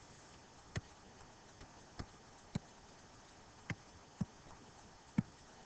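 Six faint, sharp computer mouse clicks at uneven intervals, entering numbers into an on-screen calculator, the last click the loudest.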